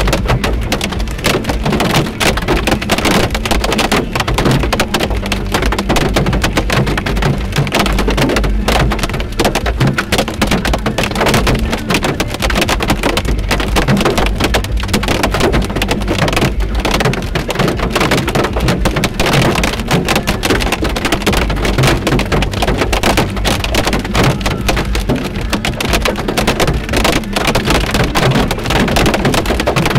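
Heavy rain and hail pelting the car's roof and windshield, heard from inside the car: a loud, dense, unbroken clatter of impacts.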